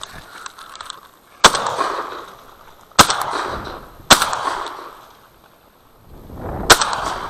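Four shotgun shots fired at flushing ducks, about a second and a half in, then at about three, four and six and a half seconds, each followed by an echo that fades over about a second.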